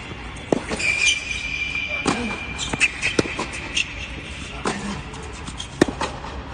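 Tennis practice rally on an indoor hard court: several sharp racket-on-ball hits and ball bounces, the loudest hit near the end, with high squeaks from tennis shoes on the court surface.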